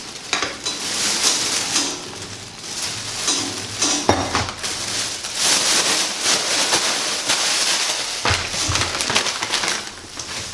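Plastic packaging crinkling and rustling as parts are unpacked, with scattered light clinks and knocks of hard parts being handled.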